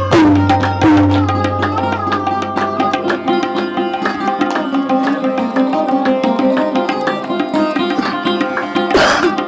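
Live instrumental passage: tabla playing a rhythm, the bass drum's deep tone swelling and bending in pitch in the first few seconds, under a sarod playing sliding melodic phrases over a steady drone.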